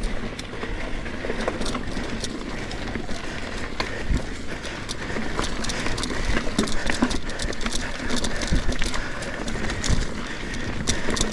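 Trek Fuel EX 9.7 full-suspension mountain bike climbing a rocky trail: a steady rolling noise of tyres over dirt and rock, with frequent sharp clicks and knocks as the bike rides over rocks and roots.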